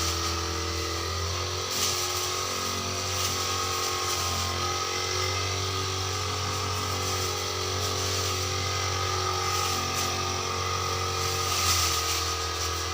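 Brush cutter engine running steadily under load, with short swells in level about two seconds in and again near the end.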